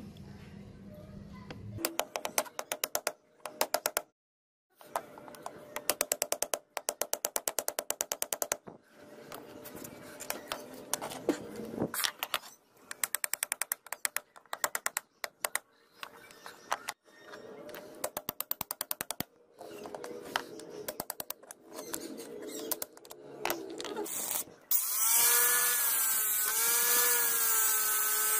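Runs of rapid tapping as a chisel is driven between the wooden handle scales and the tang of an old butcher's knife to pry the scales off. About 25 seconds in, an angle grinder starts and runs loudly with a wavering whine.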